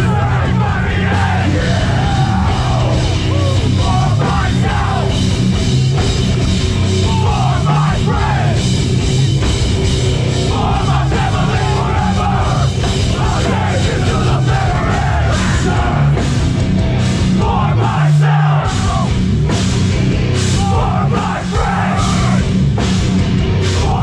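Hardcore band playing live through a festival PA: heavy distorted guitars, bass and pounding drums, with shouted vocals coming in phrases, loud and close.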